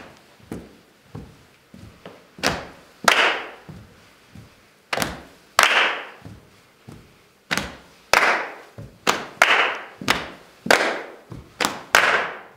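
Body percussion by a small group in unison: soft thumps of hands patting chests and slapping thighs alternating with louder, sharper handclaps, in a repeating rhythm.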